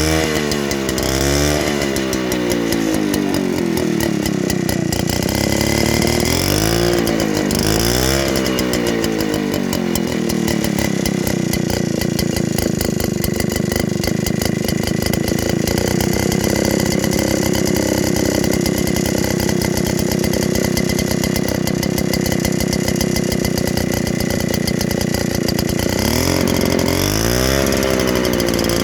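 Vintage Hungarian Kismotor és Gépgyár KL-150 two-stroke chainsaw engine running and being revved up and down several times, then held at high speed for about fifteen seconds, then dropping and revving again near the end.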